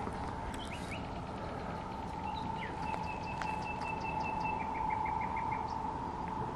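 Night-time ambience at a reed-lined lake: a steady high hum with short chirping calls, and in the middle a quick run of evenly repeated short notes.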